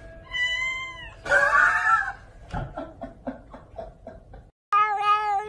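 A kitten meows: a short high meow about half a second in, then a louder, rougher cry, followed by a run of light taps. Near the end, after a brief break, a different cat starts a long, steady, lower meow that runs on.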